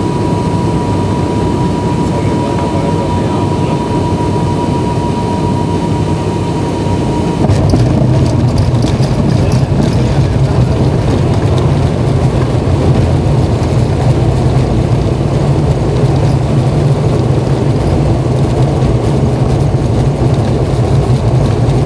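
Turboprop airliner's engines and propellers running loud and steady, heard from inside the cabin during landing and the roll down the runway. About seven seconds in, a steady high tone drops out and the sound turns louder and deeper.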